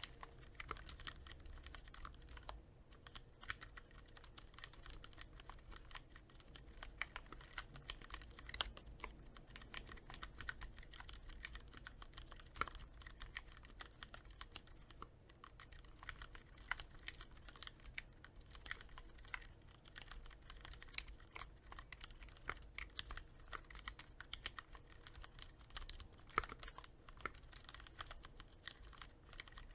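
Cherry MX Board 3.0S mechanical keyboard with Cherry MX Red linear switches, lightly lubricated with Krytox 105, being typed on: a continuous, irregular stream of soft keystroke clacks with a few louder strokes scattered through.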